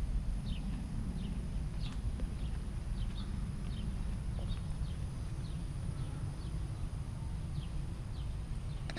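Outdoor ambience: a steady low rumble under a bird giving short falling chirps, one every half second to second.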